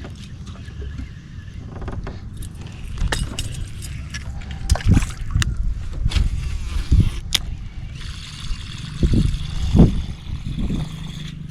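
Irregular knocks and handling thumps over a low rumble, with water sloshing, while fishing; the heaviest thumps come about halfway through and again near the end.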